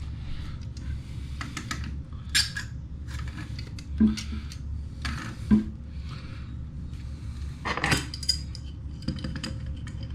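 Metal hand tools clinking and scraping on a toilet's water supply shutoff valve fitting, as a crescent wrench works it loose against a backup pair of channel-lock pliers. There are scattered light clicks and four sharper metallic clanks.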